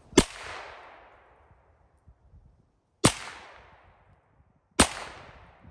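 Three single gunshots, the first two about three seconds apart and the third under two seconds later, each followed by a fading echo.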